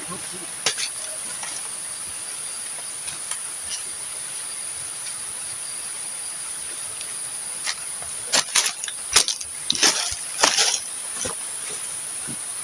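Steady high-pitched insect chorus, with a quick run of sharp knocks and clicks about two-thirds of the way through.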